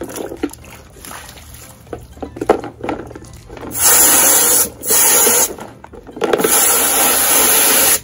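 Garden hose spray nozzle blasting water into a plastic pond filter box in three loud hissing bursts, the last about two seconds long and cut off sharply. Before the spraying, light knocks from handling the box, with one sharp knock about two and a half seconds in.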